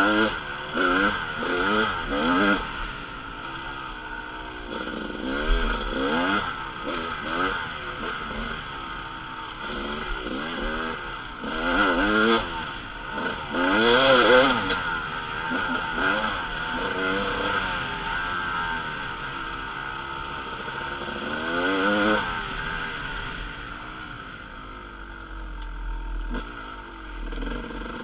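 Kawasaki dirt bike engine being ridden hard on a dirt trail, revving up and dropping back again and again as the throttle is opened and closed, loudest about twelve to fourteen seconds in.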